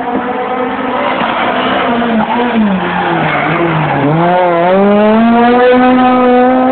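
Renault Clio rally car's engine braking down into a hairpin, its note wavering and falling to a low point about four seconds in, then rising steadily as the car accelerates out of the bend.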